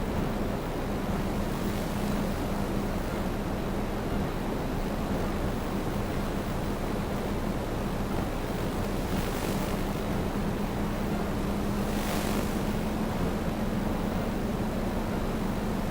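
DJI Phantom 2 quadcopter's motors and propellers running steadily in flight: a constant buzz under a rush of air noise, with two brief swells of hiss about nine and twelve seconds in.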